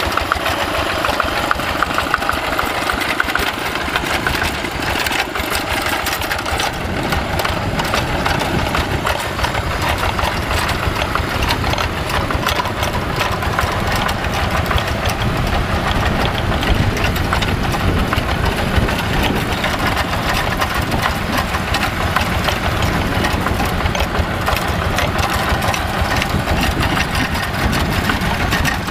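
Yanmar TF85 single-cylinder diesel engine of a two-wheel walking tractor running steadily, with a rapid, even chugging from its firing strokes, as the tractor is driven along on its iron cage wheels.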